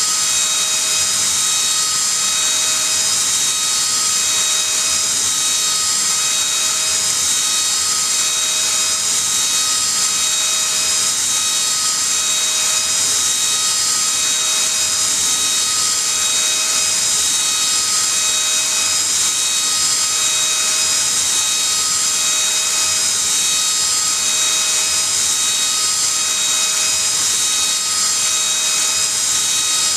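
CNC spindle running at high speed with a small end mill milling a circular pocket in a brass plate: a steady whine over a high hiss of cutting.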